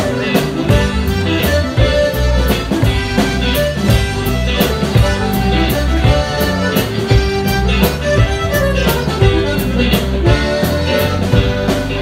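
Live band playing music, with guitars over a steady drum beat.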